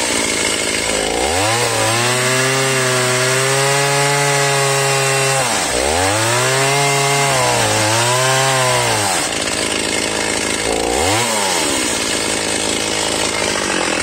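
Two-stroke chainsaw cutting into the base of a large tree trunk. The engine's pitch sags and climbs back several times as the chain bogs in the wood: a deep drop about a second in, smaller dips around six and eight seconds, and another deep drop near eleven seconds. The rest of the time it runs steadily at cutting speed.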